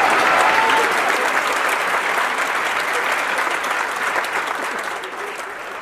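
Studio audience applauding, a dense clapping that slowly dies away toward the end.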